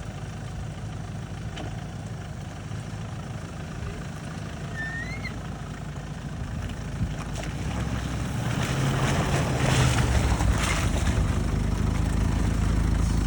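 Off-road SUV engine running as the vehicle drives along a rough trail, a steady low rumble joined by rising tyre and wind noise that grows louder from about seven seconds in. A brief high chirp sounds about five seconds in.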